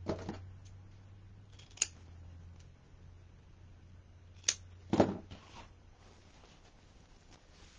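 Scissors snipping through fabric ribbon a few times with short, sharp cuts, the loudest about five seconds in: ribbon ends being cut into V-shaped dovetails.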